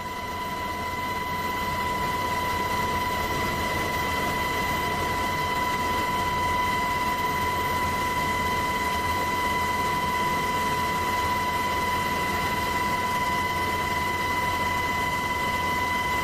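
Steady aircraft engine noise with a constant high whine over a low rumble. It rises over the first couple of seconds, then holds level.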